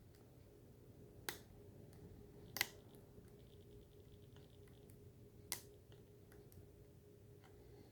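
Faint clicks of a lock pick and tension tool working the pins inside a heavy-duty five-pin Master padlock: three sharp clicks, the loudest about two and a half seconds in, with fainter ticking between them.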